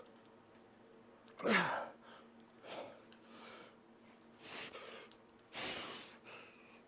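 A man's hard, breathy exhalations while straining through cable curl reps: about five sharp breaths, the loudest, about a second and a half in, a groan falling in pitch. A faint steady hum runs underneath.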